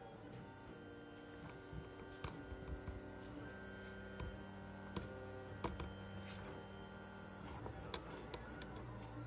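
Lulzbot Mini 3D printer running a print: its stepper motors whine in steady tones that jump from pitch to pitch every second or so as the print head and bed move, with a few light clicks.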